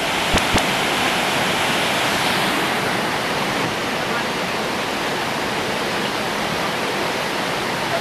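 Waterfall pouring into a plunge pool: a steady, even rush of falling water, with two short clicks about half a second in.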